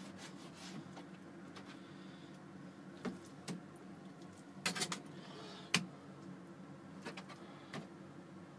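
Kitchen knife cutting raw chicken on a plastic cutting board: a few scattered light taps and knocks, with a quick cluster of them about halfway through, over a low steady hum.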